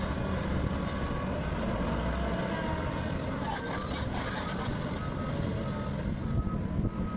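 Heavy diesel earthmoving machinery running steadily, with a brief clatter around the middle and a reversing alarm beeping at almost two beeps a second from about five seconds in.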